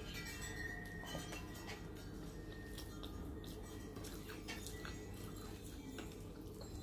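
Close-up eating sounds: chewing a mouthful of rice and curry, then fingers mixing rice on a plate, with many small clicks and clinks.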